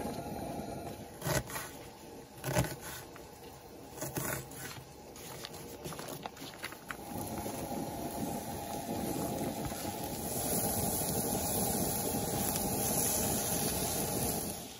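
Mushrooms and onions frying in a cast-iron skillet: sizzling, with a wooden spatula knocking and scraping food off a plate into the pan (two sharp knocks in the first few seconds). Near the end the sizzle grows louder as the onions go in and are stirred.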